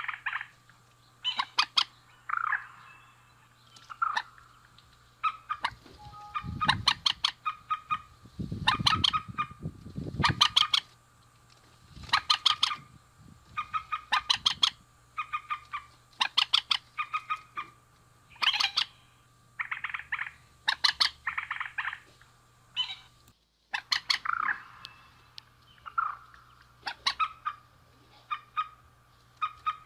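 Male and female rails (mandar) calling: repeated bursts of rapid, harsh clicking notes every second or two, with a few deeper calls partway through, over a steady faint hum.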